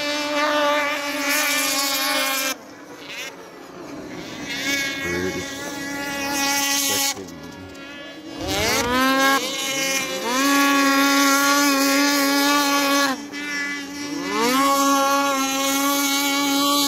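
Snowmobile engines running flat out in a race: a high, steady whine that climbs in pitch as a sled accelerates, holds, and falls away when the throttle is let off, about three or four times over.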